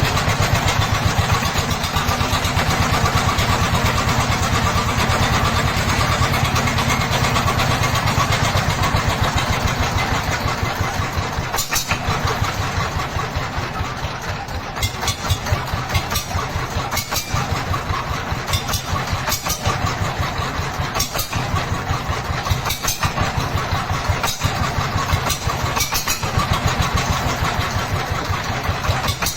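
Dongfeng single-cylinder diesel engine running steadily with a fast, even chugging beat. Its loudness eases off slightly about halfway through, and sharp knocks stand out here and there in the second half.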